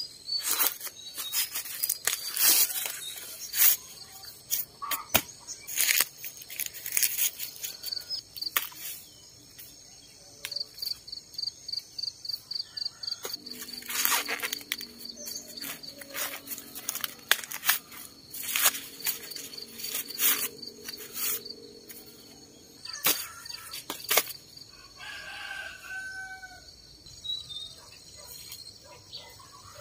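Dry corn husks and stalks crackling and rustling in sharp, irregular snaps as ears of corn are broken off and husked by hand. An insect trills in a fast pulsing beat, and a rooster crows once near the end.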